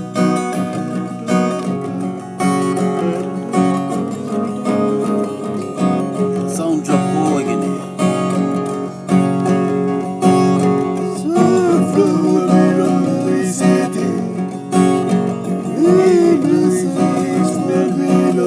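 Acoustic guitar music, strummed, with a voice singing over it in places.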